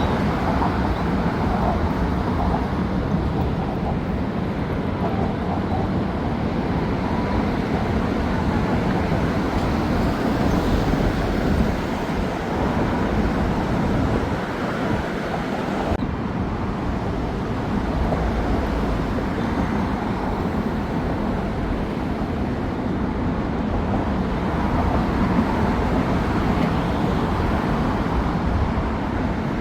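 Steady vehicle and traffic noise, a dense continuous rumble, with an abrupt change in the sound about halfway through.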